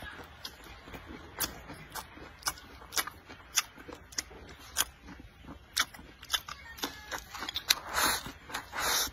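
Close-miked eating with chopsticks: chewing rice, greens and cured pork, with many sharp wet mouth clicks and smacks. Twice near the end comes a longer, louder rush as rice is shovelled from the bowl's rim into the mouth.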